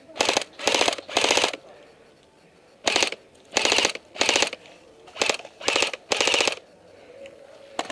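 Airsoft gun firing full-auto in short bursts of rapid pellet shots: nine bursts in three quick groups of three.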